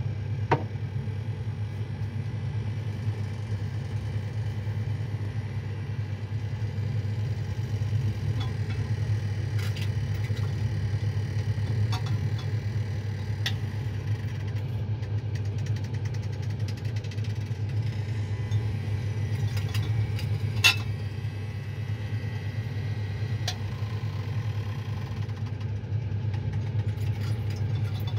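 Steady low motor hum running throughout, with a few light clicks of a plastic pipette and glassware being handled.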